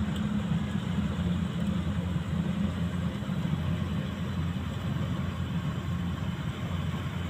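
Rice combine harvester's engine running steadily, a low, even drone.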